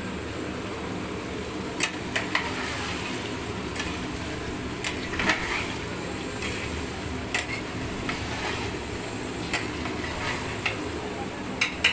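Mutton frying in a large aluminium pot while a metal ladle stirs and scrapes it, with irregular clinks and scrapes against the pot over a sizzle and a steady low hum.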